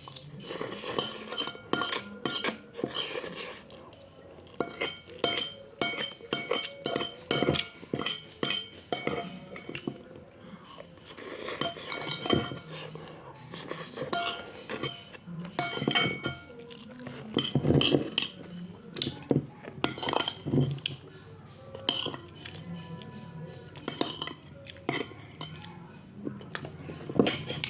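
Eating utensils clinking and scraping against a dish in short, irregular taps while noodles are being eaten.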